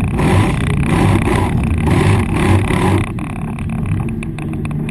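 Engine of an airsoft armoured vehicle running steadily, with a loud rattling noise over it for about the first three seconds that then drops away.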